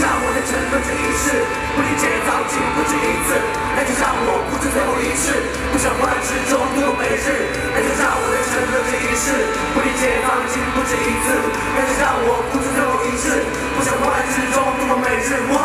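Live pop music with a young male singer's voice delivering a fast, wordy passage into a handheld microphone over the band.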